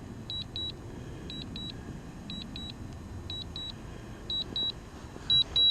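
Drone remote controller beeping during return-to-home: short high double beeps repeating about once a second, changing to two longer beeps near the end, over a low steady rumble.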